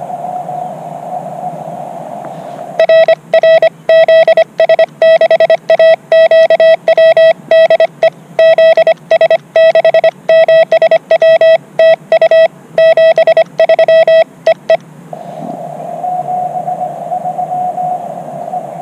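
Morse code (CW) sidetone from a portable transceiver, a single steady-pitched beep keyed on and off in dots and dashes by hand for about twelve seconds. Before and after the sending, the receiver gives a narrow band of hiss through its CW filter.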